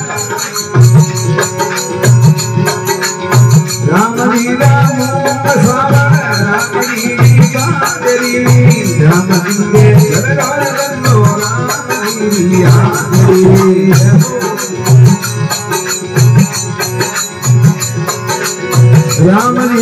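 Rajasthani devotional bhajan music: a harmonium melody over a quick, steady dholak beat, with high jingling percussion keeping time.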